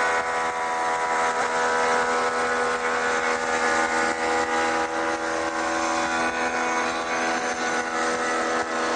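Shopsmith multipurpose machine running steadily as a shaper, a high whine over a hiss, as its spinning cutter shapes the edge of a board pushed past it to form crown molding.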